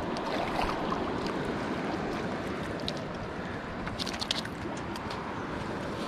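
Steady rush of moving river water and wind, with a short cluster of sharp clicks about four seconds in.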